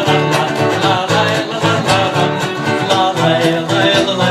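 Upbeat song music with a steady beat, an accompaniment passage between the sung lines of a children's song.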